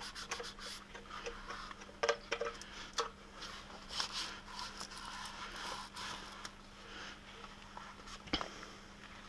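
A hand rubbing and smoothing camouflage vinyl film onto a shotgun forend: soft, dry, irregular rustling and scraping with scattered light clicks and crinkles of the film. A sharper tap comes about eight seconds in, over a faint steady hum.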